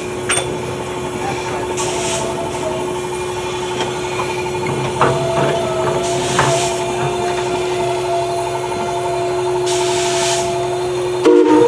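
Porter-built narrow-gauge steam locomotive running slowly past, with a steady mechanical hum and steam hissing in bursts every few seconds. A louder whistle-like tone sounds briefly near the end.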